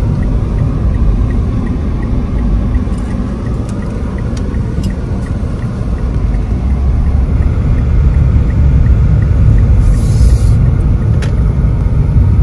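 Car cabin noise while driving: a steady low rumble of engine and road that grows louder in the second half. A faint regular ticking runs through the first part, the turn signal clicking.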